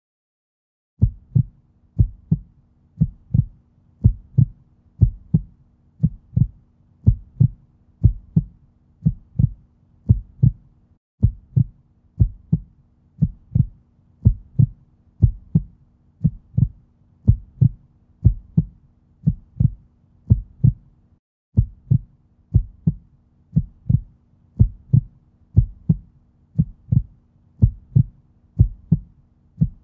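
A soundtrack of steady low thudding beats, about two a second, over a faint sustained low hum. It breaks off briefly about 11 and 21 seconds in, as if a short track were looping.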